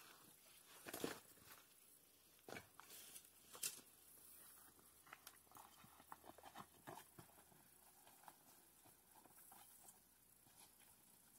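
Faint, irregular crackling and snapping of twigs and leaves as a person pushes through and handles dense brush. There are a few sharper snaps in the first four seconds, then only sparse, quieter rustling.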